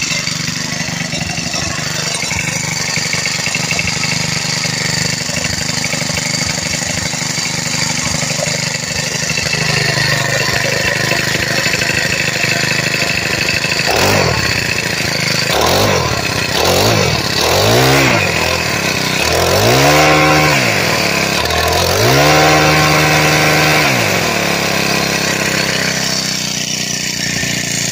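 Legend Force 4-cycle lawn tiller engine running just after a cold start, steady at first. About halfway through it is revved up and let back down several times in quick succession, then held at a higher pitch for a couple of seconds before dropping back to idle.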